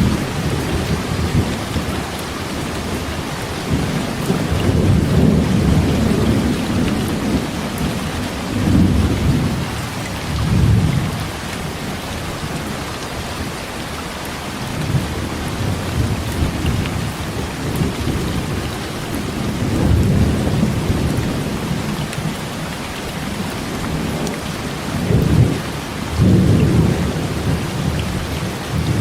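Heavy rain falling steadily, with low rolls of thunder swelling and fading every few seconds.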